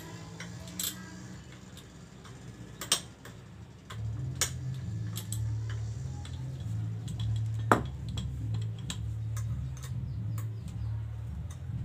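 Ratchet wrench clicking irregularly with metal tool clinks as the bolts of a motorcycle's rear sprocket are worked, with one sharper clink near the middle. A steady low hum comes in about four seconds in.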